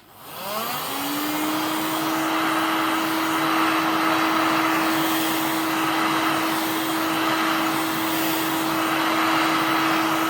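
Heat gun switched on, its fan motor spinning up over the first second and then running steadily: a rush of blown air with a constant hum.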